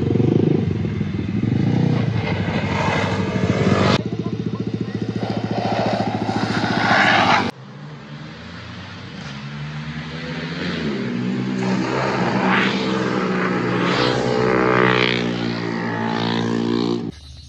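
Motorcycle engines running hard through a hairpin bend. After a cut about halfway in, one bike's single-cylinder Honda CB300R engine grows steadily louder as it approaches and leans through the corner, its pitch rising and falling with the throttle.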